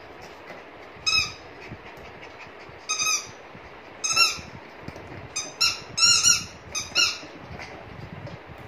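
Squeaky dog toy squeaked repeatedly as a puppy bites and chews it: short high squeaks, all at the same pitch. They come one at a time at first, then several in quick succession in the second half.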